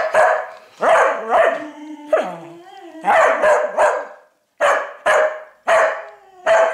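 Beagle barking repeatedly, about ten loud barks, some drawn out and falling in pitch.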